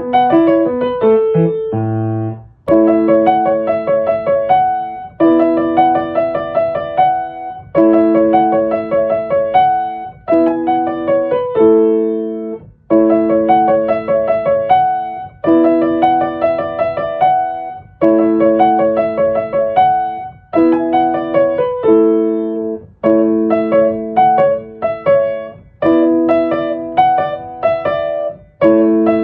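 Background piano music: a light, repeating phrase of struck notes and chords that starts again about every two and a half seconds.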